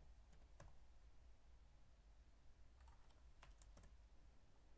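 A few faint computer keyboard keystrokes, most of them about three seconds in, over near-silent room tone.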